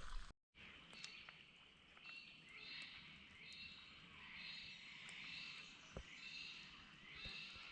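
Faint, high-pitched animal calls repeating about every three-quarters of a second over quiet outdoor background.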